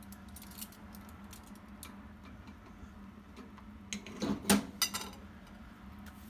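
Kitchen utensils clinking and knocking, a quick cluster of clicks about four seconds in, over a faint steady hum.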